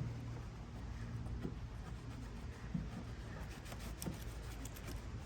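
Faint rubbing and scraping with a few light clicks, from hand work on a van's rear light fitting, over a steady low rumble.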